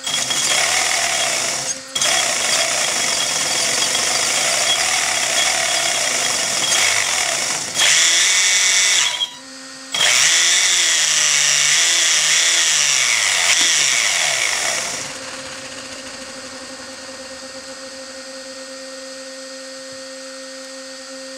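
Brushless RC motor driving a wheel through 3D-printed PETG gears and coupler under full torque from a standstill: a loud, harsh power-tool-like running noise in bursts, cut briefly about two seconds in and again around nine seconds, with the pitch rising and falling after the second restart. At about fifteen seconds it drops to a quieter steady hum.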